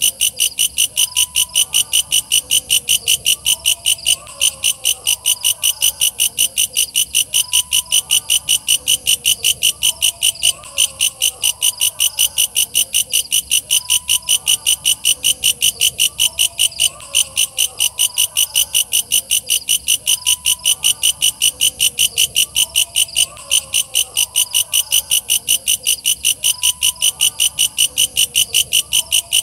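Walang kecek katydid calling: a fast, steady train of high-pitched chirps at about four a second, without a break.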